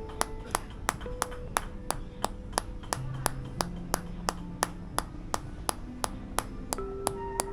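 Tok Sen wooden mallet striking a wooden wedge in an even rhythm, about three sharp taps a second, over soft background music of held notes.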